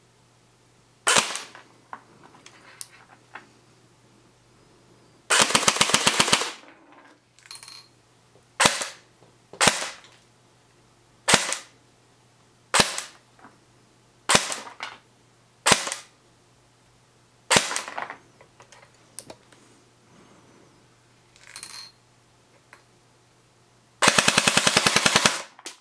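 BO Shield 595 blowback airsoft electric rifle firing: a dozen or so single semi-auto shots, each a sharp snap, with two full-auto bursts of about a second each, one around five seconds in and one near the end.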